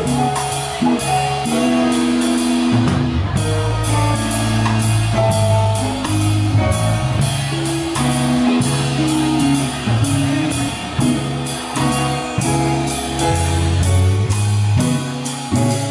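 Live band playing with drum kit, electric guitar, keyboard and saxophone: held melody notes over a steady beat.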